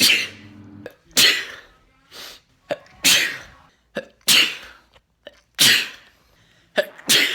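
A man sneezing repeatedly: about six loud sneezes, each a sharp burst that fades quickly, spaced one to two seconds apart.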